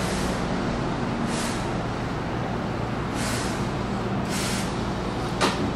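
Keihan commuter train standing at the platform, its equipment humming steadily, with three short hisses of air and a sharp click near the end.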